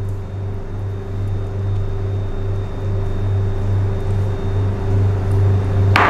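Steady low hum with a slight pulse, like a running machine or electrical hum; near the end, a sharp clack as a silicone spatula knocks against a stainless steel mixing bowl.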